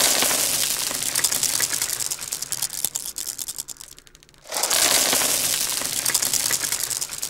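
Dense rattling clatter of many small hard clicks in two runs. The first tails off about four seconds in, and a second starts half a second later.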